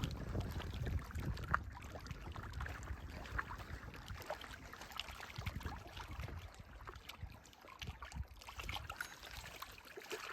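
Faint water sloshing with small scattered splashes and drips, fading out near the end.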